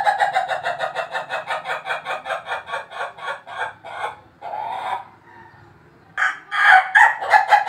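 Ayam ketawa (Indonesian laughing chicken) rooster crowing: a long crow of rapid repeated notes, about four a second, that sounds like laughter and trails off about four seconds in. After a short note and a brief pause, another crow starts near the end.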